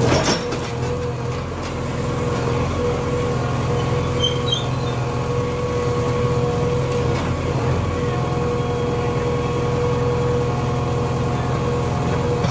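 JCB 3DX Xpert backhoe loader's diesel engine running steadily as the backhoe digs, with a steady whine over the engine hum. A sharp knock comes right at the start.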